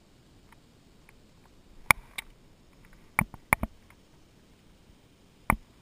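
A tree climber handling his rope and climbing gear: about six sharp clicks and knocks close to the microphone, irregularly spaced, the loudest about two seconds in.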